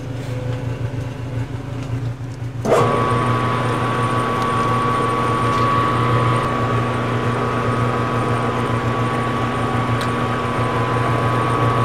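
Metal lathe switched on about three seconds in, after a low hum; the four-jaw chuck and workpiece then spin steadily, the machine running with a constant whine from its motor and gearing.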